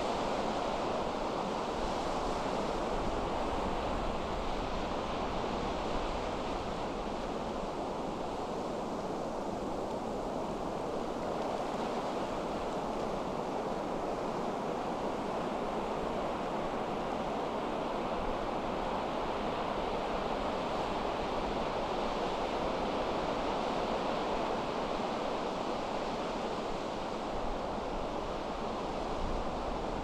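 Pacific Ocean surf breaking and washing continuously onto a sandy beach, a steady rushing wash with no single wave standing out, with wind blowing.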